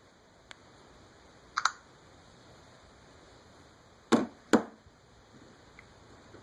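A few clicks and taps from handling a smartphone, most likely the LG Optimus L9: a faint click, a quick double click, then two louder knocks about half a second apart.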